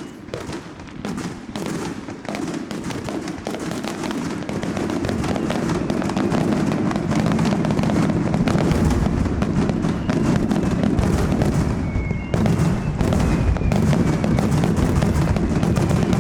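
Aerial fireworks going off in quick succession, a dense crackle of bursts over booming, growing louder and thicker about five seconds in.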